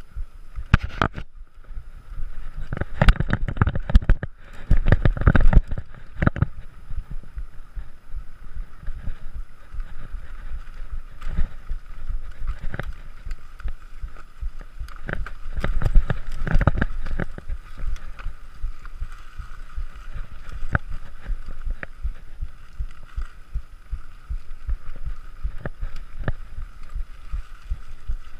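Bicycle ridden fast over a rough trail: wind buffeting the microphone, with rattling knocks and thumps from bumps and obstacles, heaviest a few seconds in and again about halfway through, over a steady high buzz.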